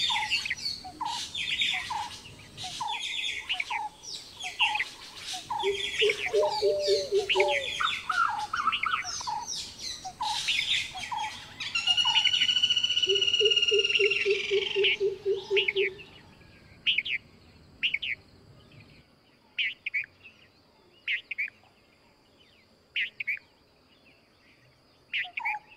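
A busy chorus of forest birds: many short chirps and whistles, with runs of evenly repeated low hooting notes, and a loud arching whistle about halfway through. After about two-thirds of the way in it drops sharply to scattered single chirps over a thin, steady high tone.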